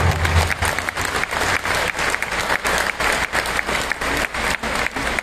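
Stadium crowd clapping, with sharp claps from spectators close by standing out over the applause.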